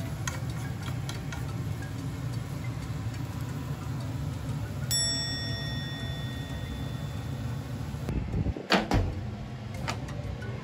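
Bean sprouts and garlic chives stir-frying in a frying pan and turned with chopsticks: a steady low noise with scattered light ticks. A single ringing ding sounds about five seconds in, and a brief loud rush of sound comes near the end.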